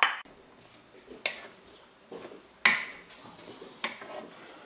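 Wooden spoon stirring chunky potato salad with yoghurt in a stainless steel bowl: four sharp knocks and scrapes of the spoon against the bowl, about one every second and a half, with softer mixing noise in between.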